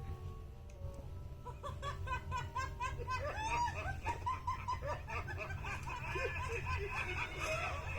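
Cartoon characters laughing together, several high giggling voices in quick repeated bursts starting about a second and a half in, over a steady low hum.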